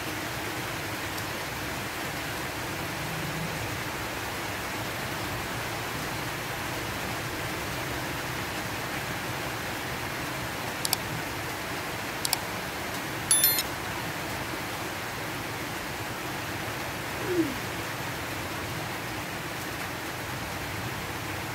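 Steady hiss of background noise, with a few light clicks of a metal fork and spoon against a plate about eleven to thirteen seconds in, and one brief low falling sound a few seconds later.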